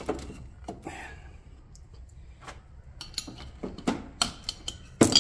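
Metal parts of an electric golf cart motor clinking and scraping as they are handled by hand: the end housing and its bearing retaining plate. Scattered light clicks, coming thicker and louder in the last two seconds.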